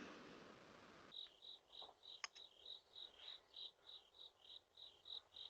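Faint, steady chirping of a cricket, about three even chirps a second, beginning about a second in as the tail of a louder noise fades out.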